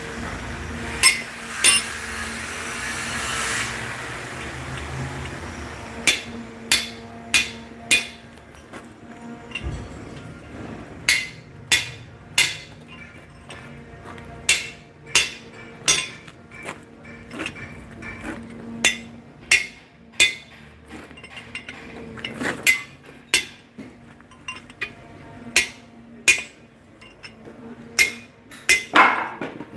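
Hand hammer striking the steel ring seated in the centre of a 1956 Ford truck's cast spoked artillery wheel hub: sharp metallic clinks at an uneven pace, mostly in runs of about one to two blows a second after a pause of a few seconds near the start.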